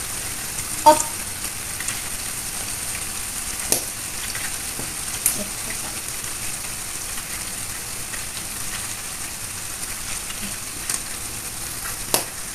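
Chopped egg, beef and aromatics sizzling steadily in a hot nonstick wok, just after sweet soy sauce has been added. A few sharp clicks come from the silicone spatula against the pan.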